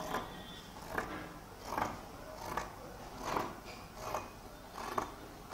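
Scissors cutting through folded cloth, seven snips at a steady pace of a little more than one a second.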